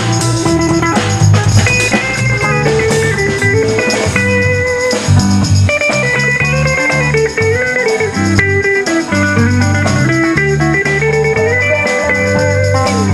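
Electric guitars playing a bluesy instrumental: a single-note lead line moving in steps over low rhythm notes.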